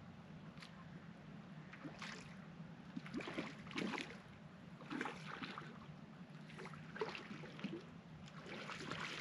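Water splashing in irregular bursts as a hooked queenfish thrashes at the surface while it is played in to the rocks.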